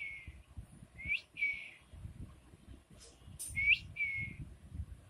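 A person whistling to call a dog: three two-part whistles, each a quick rising note followed by a falling one, with faint low rustling underneath.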